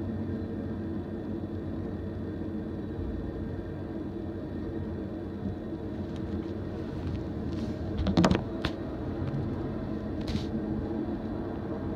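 Norfolk Southern oil train of tank cars rolling past, a steady low rumble, with a short burst of sharp metallic clanks about eight seconds in and a brief high scrape about two seconds later.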